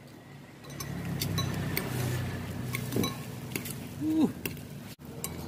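Metal spoon and fork clinking and scraping against a ceramic bowl of bakso broth, a scatter of light, sharp chinks.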